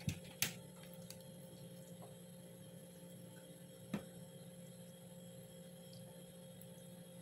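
A spatula knocking lightly against a stone bowl as garlic butter is scooped out, twice in the first half second and once about four seconds in, over a low steady hum.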